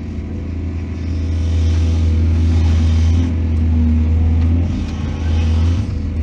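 Excavator diesel engine running steadily with a deep drone, coming up in level about a second in as it works under load.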